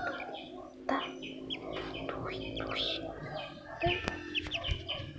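Newly hatched ducklings peeping in short, high, repeated calls, with a few sharp clicks.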